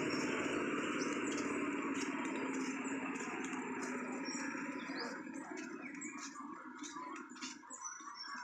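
A vehicle goes by on the road, its engine and tyre noise dying away over the first five seconds. Birds chirp, with scattered sharp clicks.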